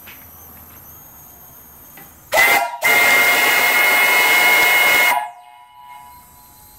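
Brass steam whistle on a fire-tube steam boiler, blown with a short toot about two seconds in and then a long, loud blast of about two and a half seconds. It gives a steady chord of several tones over a rush of steam hiss, and cuts off suddenly.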